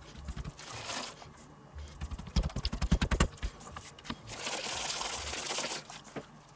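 Hands rubbing seasoning into a raw pork steak on a wooden cutting board, with a quick run of thumps a little over two seconds in. Then a paper spice pouch rustles as more seasoning is shaken out.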